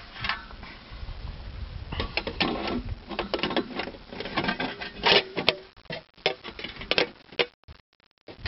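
Irregular clicks and light rattles of handling close to the microphone. They are loudest about five seconds in and thin out near the end.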